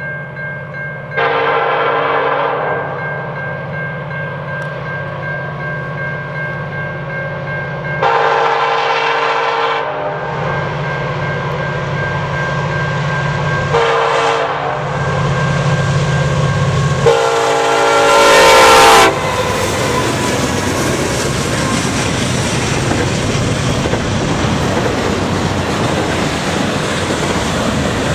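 A CN SD70M-2 locomotive's air horn sounds the grade-crossing signal: two long blasts, a short one, then a final long blast, the last the loudest. After that the locomotives and double-stack container cars pass close by, their wheels clattering steadily on the rails.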